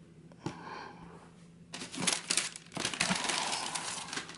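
Tissue wrapping paper crinkling and rustling as a sneaker is pulled about in its shoebox. After a faint click it is quiet for about a second and a half, then it turns into a dense crackle of paper handling that runs to the end.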